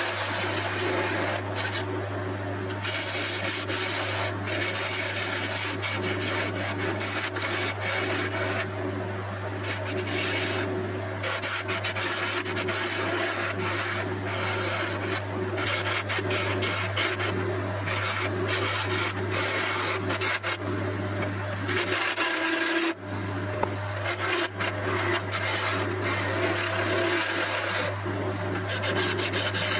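Wood lathe spinning an African padauk handle blank while a hand-held turning tool cuts into it: a steady motor hum under a rough scraping, shaving noise that comes and goes as the tool bites and lifts. The sound drops out briefly about three-quarters of the way through.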